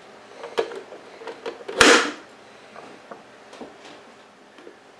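White plastic vegetable chopper handled on a cutting board: a few light plastic clicks, then one solid knock about two seconds in as it is set down, followed by a couple of faint ticks.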